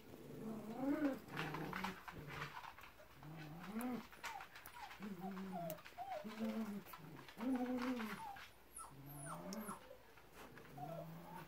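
Great Pyrenees puppy whining: a string of short whimpering calls that rise and fall, about one a second, some low and some higher and squeakier.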